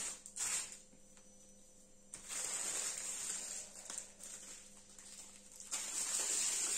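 Small plastic bags of diamond-painting drills being handled, rustling in a few short spells.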